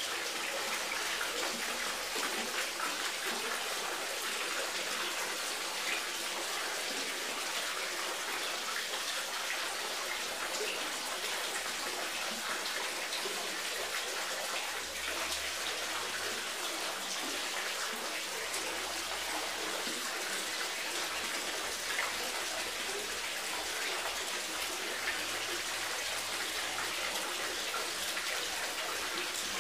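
Water running and splashing steadily, an even unbroken rush, such as an inflow pouring into a fish tank.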